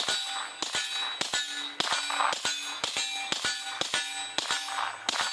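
A PSA Dagger 9mm pistol fitted with a Dead Air Mojave 9 suppressor fires a rapid string of shots, about two to three a second, with standard 115-grain supersonic ammunition. Each shot is followed by the clanging ring of the steel targets being hit.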